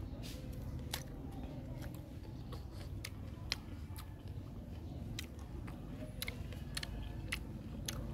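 A person biting and chewing crisp fresh fruit close to the microphone: wet crunching with sharp, irregular clicks, roughly two a second.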